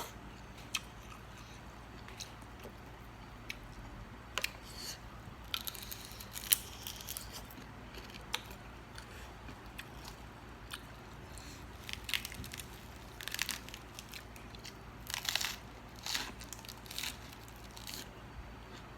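Close-up eating sounds: chewing and crunching with scattered sharp, wet mouth clicks, coming in clusters, busiest in the last third.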